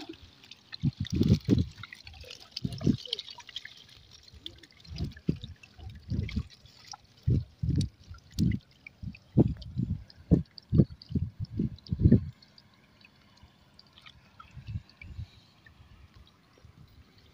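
Shallow water splashing and dripping as a net fish trap full of fish is handled in it: a run of irregular soft low knocks and splashes for about twelve seconds, then quieter.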